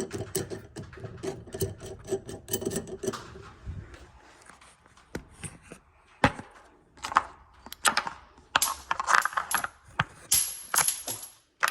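Small steel nuts and washers clinking against each other and against metal as they are handled and threaded: a run of sharp clicks, with bright metallic jingling in clusters in the second half.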